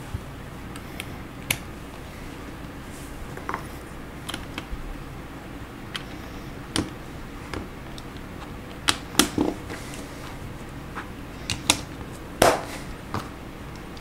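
Plastic Lego pieces clicking and snapping together under the fingers as they are pressed onto a model. The clicks are sharp and irregular, with a small cluster about nine seconds in and the loudest about twelve and a half seconds in.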